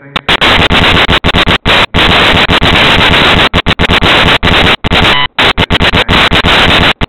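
Loud, harsh static noise that overloads the recording, chopped by many brief dropouts.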